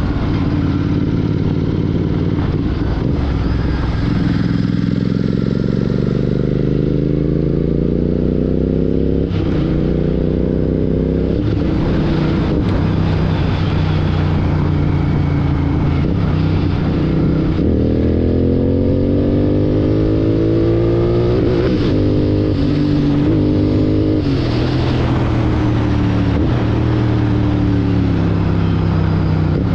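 Royal Enfield Continental GT 650's parallel-twin engine running through a Red Rooster Performance aftermarket exhaust while riding. The engine note climbs under acceleration and drops back at each gear change, several times over.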